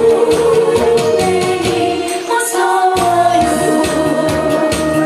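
A woman singing into a microphone over amplified accompaniment with a steady beat; the bass and drums drop out briefly about two seconds in, then come back.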